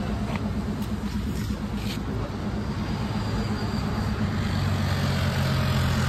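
Road traffic with a motor vehicle engine running at low revs, a steady low throb. A deeper engine hum grows about four and a half seconds in as another vehicle comes closer.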